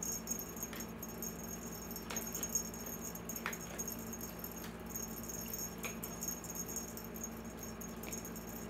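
A wand cat toy being played with: faint, scattered jingling and rustling as the cat goes after it, over a steady background hum.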